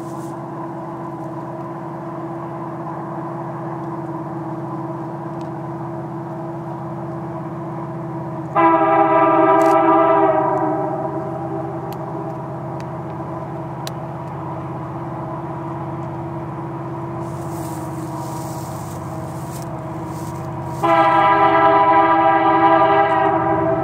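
Air horn of an approaching diesel freight locomotive, the lead unit of a CN train, sounding two long blasts about twelve seconds apart. The first lasts about two seconds and the second about two and a half. Under the horn is a steady drone from the train's diesel engines.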